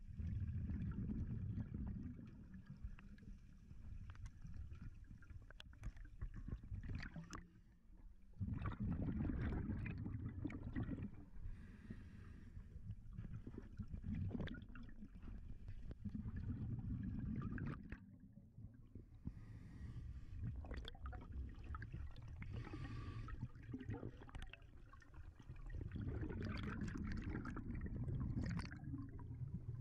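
Underwater sound of a scuba diver's regulator breathing: exhaled bubbles rumbling in surges of a couple of seconds, with fainter hissing and clicks between breaths.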